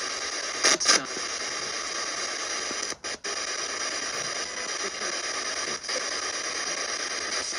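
Steady static hiss, with two short, loud double bursts about a second in and brief dropouts around three seconds in.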